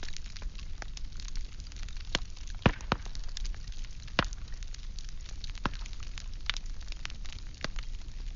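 Firewood burning, crackling with many small quick clicks and a few louder pops, the strongest about two and a half, four and five and a half seconds in, over a low steady rumble.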